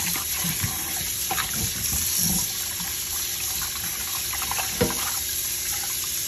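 Kitchen faucet running cold water into a pot of water in a stainless-steel sink, with splashing from hands swishing raw chicken in it. A short knock comes about five seconds in.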